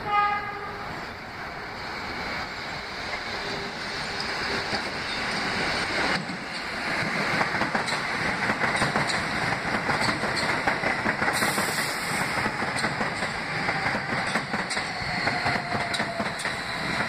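Kawasaki R160B subway train giving a short horn blast, then approaching and running past with steadily rising wheel-and-rail noise and clickety-clack over the rail joints. A faint falling whine near the end as it slows into the station.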